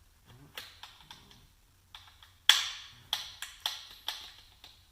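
Scattered sharp metallic clicks and clinks from the shift rods and gears of a Ford Escort ZX2 manual transmission being worked by hand toward neutral during reassembly. A few faint clicks come first, the loudest about two and a half seconds in, then several quicker ones.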